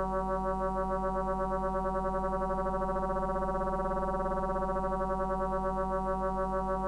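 FM synthesizer playing one held buzzy note with many overtones, its level pulsing in a wobble that speeds up to a fast flutter about midway and then slows again as a control puck on the tabletop is turned.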